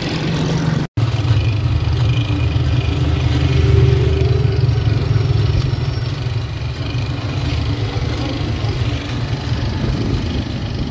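Steady low rumble of a motor-vehicle engine running amid street traffic, briefly cutting out about a second in.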